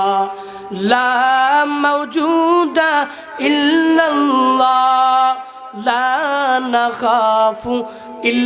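A young man's unaccompanied voice singing a drawn-out Islamic devotional chant over a PA microphone, long held notes with wavering melismatic ornaments, in phrases broken by short breaths.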